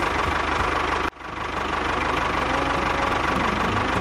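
Tractor engine running steadily with a rapid knocking beat. It cuts out abruptly about a second in and fades back up.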